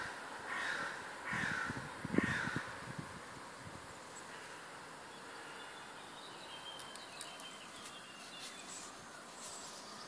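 Morning bird chorus: three short calls that slide downward in the first three seconds, then fainter, higher-pitched bird song further on. A low bump about two seconds in is the loudest moment.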